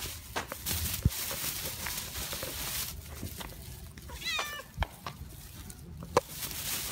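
A stray cat meowing: one short call a little past the middle, with a few sharp taps around it.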